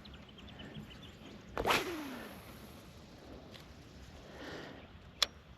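A fishing rod swished through a cast, one sharp whoosh about two seconds in, followed by faint line noise and a single sharp click near the end.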